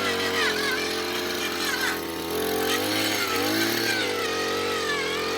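Gas-powered earth auger's small engine running, its pitch sagging and recovering twice as it labours under load.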